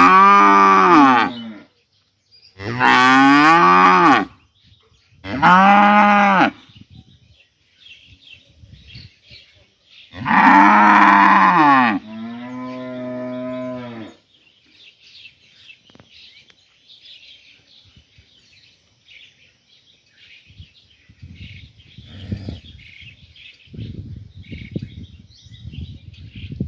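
Cows mooing loudly: four long calls in the first twelve seconds, then a softer, lower call. This is the calling of herd-mates to a cow that has been led away from them. Afterwards birds chirp faintly, and a low, irregular rumbling noise comes in near the end.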